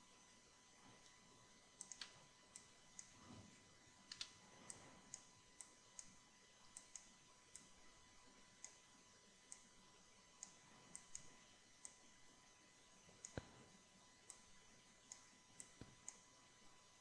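Faint, irregular clicks from a computer mouse and keyboard, about one or two a second, as vertices are selected and moved in 3D modeling software.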